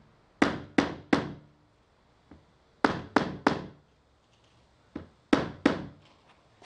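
Hammer blows driving a part snugly into place on a PVC pipe shower tank. They come in quick groups: three, then three more, then a light tap and two more, each a sharp knock with a short ring.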